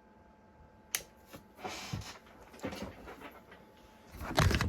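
Handling noise from an e-bike battery pack being carried and fitted: rustles and knocks, with a sharp click about a second in and a louder scrape or thud near the end.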